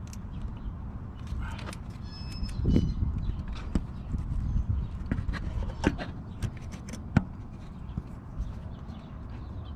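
Irregular metal clicks and knocks from a small ratchet and 10 mm socket being worked on a car's thermostat housing bolts, over a low rumble of handling noise.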